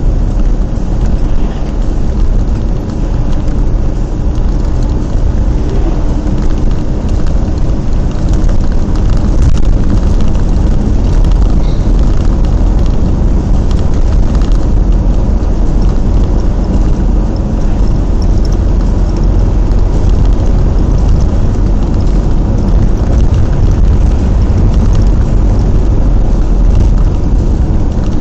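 Steady road noise inside a moving vehicle's cabin: engine rumble and tyres running on a wet road.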